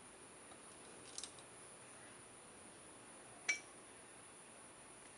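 Small metal carburettor parts clinking as they are handled: a quick double clink about a second in, then a sharper, ringing clink about halfway through. Crickets chirr steadily behind.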